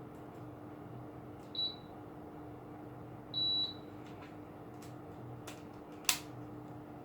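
National CS-C90KH split air conditioner's indoor unit beeping twice as it takes remote commands, a short high beep and then a longer one, over the unit's steady running hum. A sharp click comes near the end.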